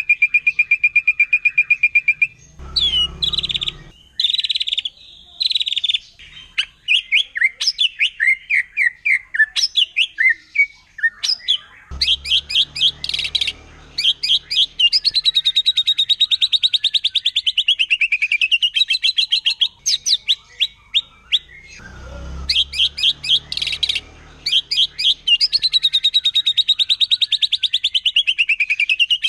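White-rumped shama singing loudly: long, very rapid trills that dip in pitch and climb back, broken by short bursts of varied whistled notes.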